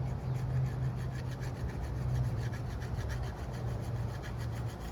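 Knife blade scraped in quick repeated strokes across the coarse side of a diamond sharpening stone wet with lighter fluid, a rapid rasping rhythm.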